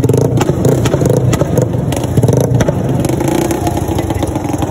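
Motorcycle engine revving hard through a loud exhaust pipe, holding a steady, loud note.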